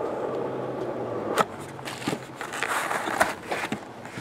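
Plastic shrink wrap crinkling as it is peeled off a cardboard trading-card box, then the box being opened and a hard plastic card case handled, with a few sharp clicks and taps.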